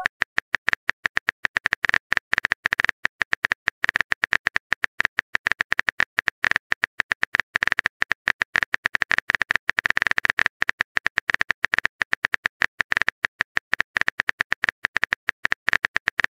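Keyboard typing sound effect from a texting-story app: a rapid, uneven stream of sharp clicks, about ten a second, as a message is typed out letter by letter.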